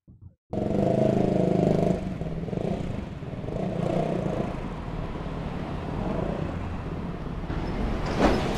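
Street traffic noise: a motorcycle's engine running close by for the first second or so, then a steady traffic rumble, and a louder swell near the end as a large vehicle passes close.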